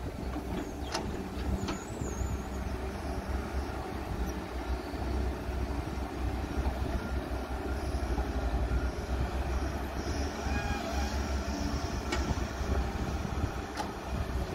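Caterpillar 320C hydraulic excavator's diesel engine running steadily under load as it digs and swings, with a few sharp knocks from the bucket working the soil and rock.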